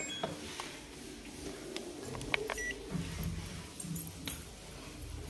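Control panel of an LG top-load inverter washing machine beeping as it is switched on and started, with a short beep at the start and another about two and a half seconds in, and a few light button clicks between them.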